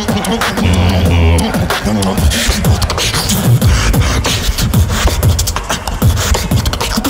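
A beatboxer performing solo through a microphone: rapid kick- and snare-like hits over deep bass tones, with a held bass hum about a second in.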